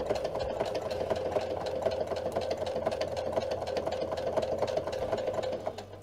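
Electric sewing machine running at a steady speed, stitching the coarse hook side of Velcro tape onto fabric with rapid, even needle strokes. It stops near the end, halting with the needle down ready to pivot at a corner.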